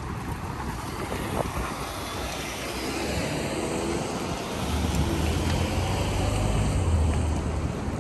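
City street traffic noise with wind buffeting the microphone; a vehicle's low engine rumble grows louder from about halfway through.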